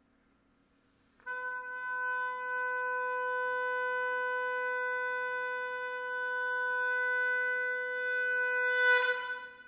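Oboe holding one long steady note that begins about a second in, swells near the end and then breaks off.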